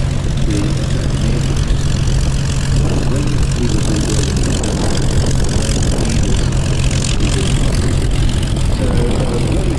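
Propeller-driven piston aircraft engine running steadily with a constant low drone, with faint voices underneath.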